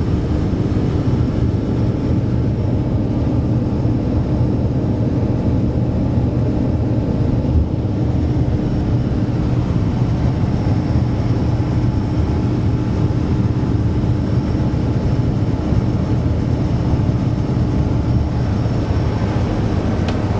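Hydrofoil's engines running at a steady pace under way: a loud, even, low drone with a constant hum.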